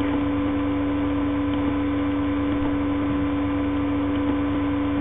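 A steady electrical hum, several constant tones with the lowest loudest, over an even hiss.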